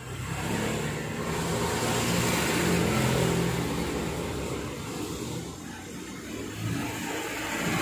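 A motor vehicle's engine running, swelling to a peak about three seconds in and then easing off.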